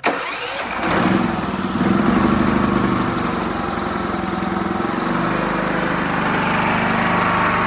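Onan Cummins generator engine starting up on the test fire and running steadily, settling to a lower, even pitch about five seconds in. It runs now that the electric choke, which had come loose and kept it from starting, is reattached.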